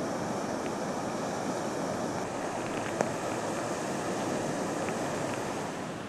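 Strong wind and storm surf: a steady rush of noise, with one sharp click about halfway through.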